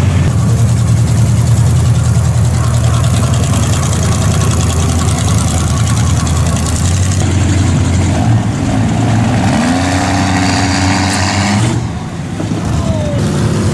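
A motor vehicle's engine running steadily, with its pitch rising about nine seconds in as it revs up.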